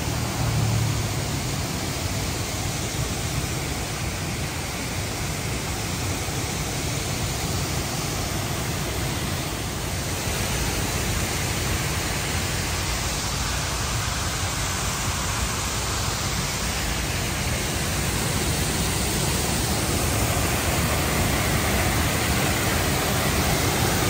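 A waterfall rushing steadily in heavy flow, a constant roar of falling water that grows a little louder near the end.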